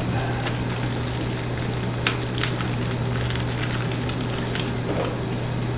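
Clear plastic bag wrapping crinkling and crackling as it is handled and pulled open, with a couple of sharper clicks about two seconds in, over a steady low hum.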